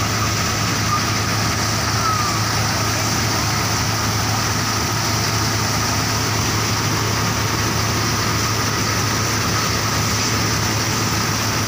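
A tractor-driven grain thresher running steadily off the tractor's PTO shaft, with the tractor's diesel engine humming underneath at a constant speed.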